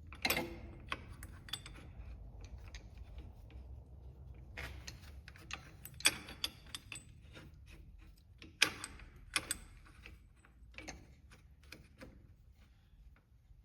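Metal hand tools and the parts of a threaded bushing-press tool clinking and clicking as they are handled and fitted, with two sharper metallic knocks about six and nine seconds in.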